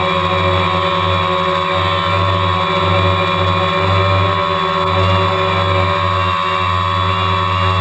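Multirotor drone's electric motors and propellers running with a steady buzzing hum, the pitch wavering slightly as the drone climbs.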